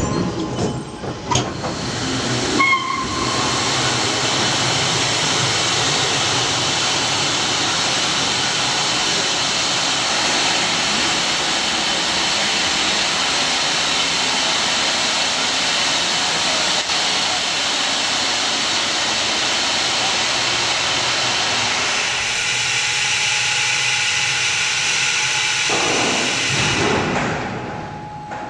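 Nike Hercules missile elevator running as the platform carries the missile down into the bunker: a loud, steady hissing machine noise, with a few knocks as it gets going and fading out near the end.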